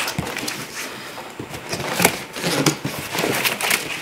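Cardboard wheel box being opened by hand: flaps pulled apart, with irregular scraping, rustling and light tapping of cardboard.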